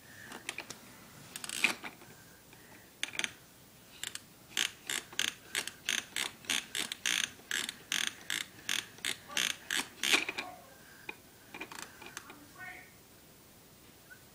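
Plastic baby activity toy clicking as its spinning parts are turned by hand: a few loose clicks, then an even run of ratcheting clicks at about four a second for several seconds, tailing off into a few scattered clicks.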